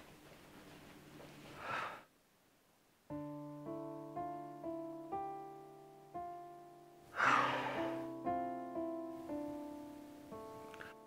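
Soft solo piano score enters about three seconds in, single notes and chords ringing and fading, roughly two a second. A loud, heavy breath out cuts in over it a little past halfway, and a softer breath comes before the piano begins.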